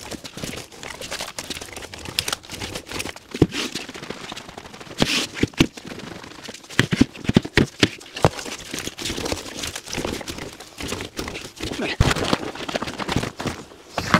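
A heavy, liquid-filled 5-gallon plastic pail rolled and tipped about on a concrete floor to mix its contents, giving irregular knocks, thuds and scrapes throughout.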